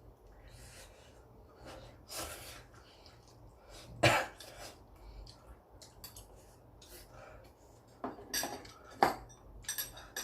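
A man coughing and clearing his throat, set off by the chilli heat of extremely spicy ramen: sharp coughs, the loudest about four seconds in and again near the end, with a few smaller ones just before the last.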